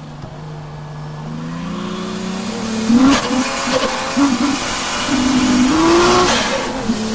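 Toyota JZX100 Tourer V's 1JZ-GTE turbocharged straight-six heard from inside the cabin: running steadily at part throttle, then from about three seconds in revving hard with the pitch jumping up and down as the car is driven through a drift. It eases off briefly near the end for a gear change.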